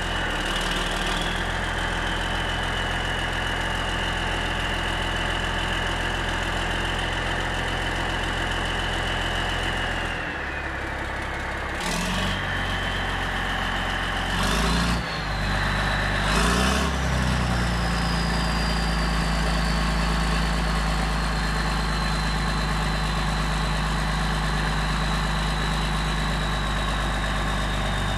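Big turbocharged diesel engine idling cold, with a high, steady turbo whistle over the low engine note. About ten seconds in the whistle sags. The engine is then revved briefly three times in quick succession, and after the last rev the turbo whistle sits higher and slowly falls.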